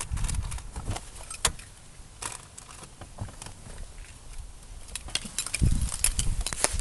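Volkswagen Passat 1.8T (AEB) turbocharged four-cylinder engine running with an irregular metallic ticking rattle from underneath the car, over a low rumble that swells near the end. The owner hopes it is just a loose heat shield.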